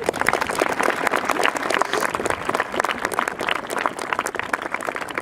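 Audience applauding, starting suddenly.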